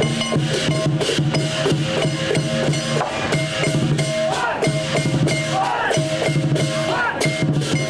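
Chinese lion dance percussion: a large drum beaten in fast, steady strokes with gongs and cymbals clashing and ringing over it.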